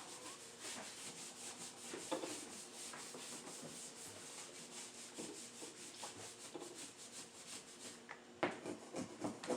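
Stiff scrub brush scrubbing a hard surface in quick back-and-forth strokes, about four or five a second, stopping about a second before a few knocks near the end.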